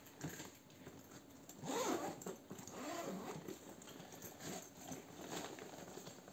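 Hands handling a Carlo Gattini Lamberto leather laptop bag: irregular rustling and rubbing of the leather as the handles are moved, loudest about two seconds in, with small clicks of the fittings. Near the end the top compartment is unzipped and opened.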